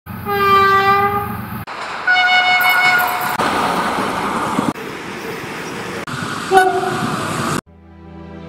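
A quick run of cut-together train clips: a locomotive horn sounding a long steady blast, then a second, higher-pitched horn blast, then the rumble of trains running on the rails with a short horn toot, each clip cut off abruptly. Music starts near the end.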